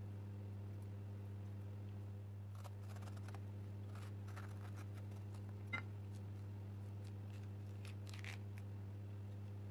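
A small kitchen knife cuts and scrapes tangerine peel in short, crisp, irregular strokes, starting a couple of seconds in, with one sharp click about halfway through. A steady low electrical hum runs underneath.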